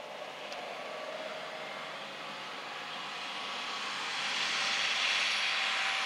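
A steady rushing engine noise that grows steadily louder, as of a motor-driven machine drawing closer.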